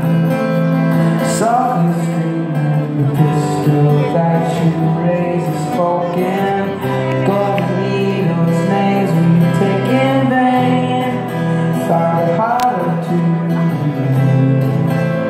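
Acoustic guitar strummed live by a lone performer on stage, a steady stretch of the song between sung lines, with the hall's reverberation.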